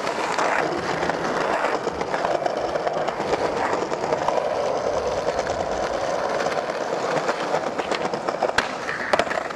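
Skateboard wheels rolling over stone paving slabs, a steady rumbling hiss with small clicks. Near the end, a sharp knock as the board hits a short metal post during a trick, then a couple of lighter knocks.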